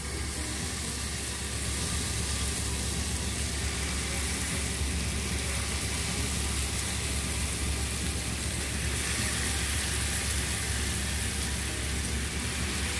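Melted butter sizzling steadily in a hot ridged grill pan as skewers of marinated chicken tikka are laid in, over a low steady hum.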